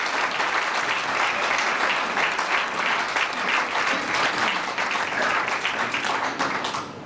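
A large hall audience applauding steadily, dense clapping from many hands, in appreciation of a recited poetry couplet.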